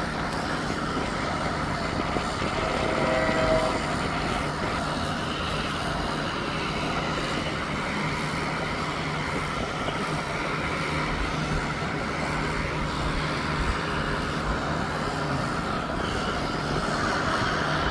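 Steady outdoor vehicle noise with a low steady hum running under it, and a short faint tone about three seconds in. No train passes.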